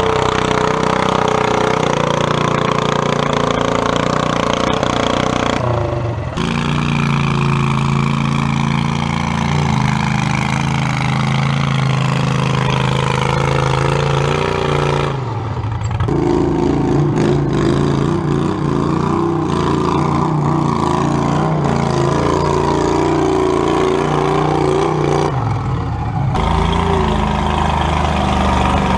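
Small garden tractor engines running hard under load while pulling a weighted sled: first a red garden tractor, then a green John Deere garden tractor. The engine note holds steady with slow pitch changes and switches abruptly three times.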